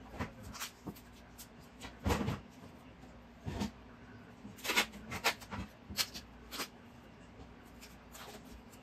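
Metal wire H-stakes and duct tape being handled on carpet: a string of short, sharp rustles, scrapes and clicks, bunched in the middle and loudest about halfway through.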